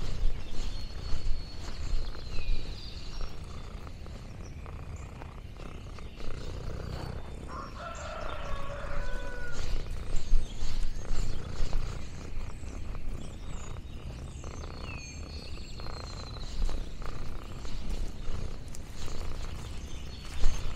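Farmyard sounds: a chicken calls for about two seconds near the middle, and a small bird sings a short high phrase with a falling swoop twice. Under them runs a steady low rumble with uneven soft rustling and knocks.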